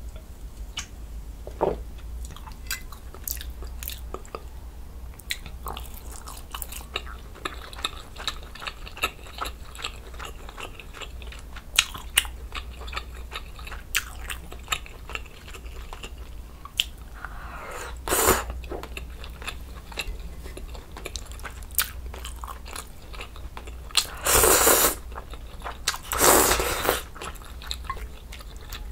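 Close-miked eating of budae jjigae: wet chewing and biting of sausage and noodles, with many small clicks of chopsticks and a wooden spoon. Near the end come two louder slurps, each about a second long.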